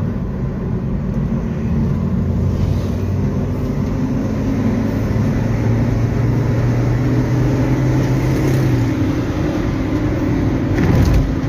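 Cabin noise of a moving Suzuki XL7: the 1.5-litre four-cylinder engine's steady hum under a rumble of tyres on the road, its note shifting about nine seconds in.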